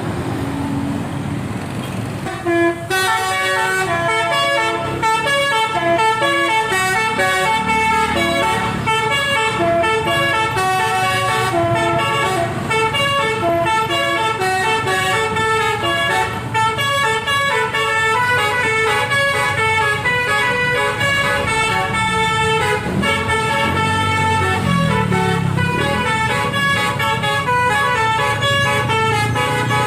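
Bus telolet horn, a multi-trumpet Basuri air horn driven by the Takur melody module, playing a fast tune of quickly stepping notes. It starts about two and a half seconds in, after engine and traffic noise.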